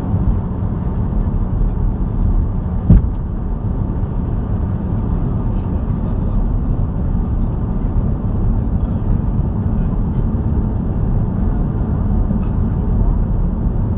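Steady low cabin rumble of an Airbus A330-200 airliner, engine and airflow noise heard inside the passenger cabin, with a single sharp knock about three seconds in.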